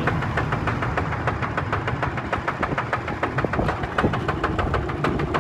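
Yanmar NF-series single-cylinder diesel engine on a walk-behind tractor, running steadily at low speed with an even, rapid knock of about eight firing beats a second.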